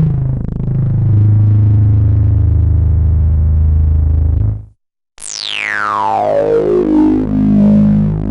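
Analogue synthesizer with its resonant filter swept: a low buzzy note holds steady, then cuts off suddenly about four and a half seconds in. After a short gap a new note starts with its resonance peak sweeping down from very high to low, a falling whistling tone over the buzz.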